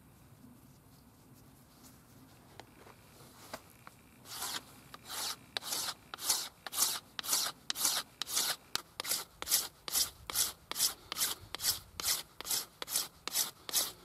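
A flint flake scraping a wooden arrow shaft to reduce its diameter: quiet with a few faint clicks at first, then from about four seconds in a steady run of short scraping strokes, about two to three a second.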